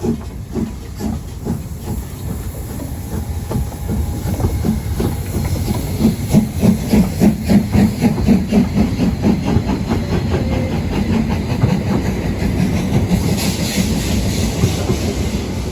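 Narrow-gauge Harz steam locomotive chuffing in an even rhythm, the beats growing louder about a third of the way in, with a burst of steam hiss near the end.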